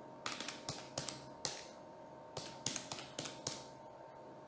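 Keys being tapped: two short runs of quick, light clicks, the first in the opening second and a half and the second about two and a half seconds in, over a faint steady hum.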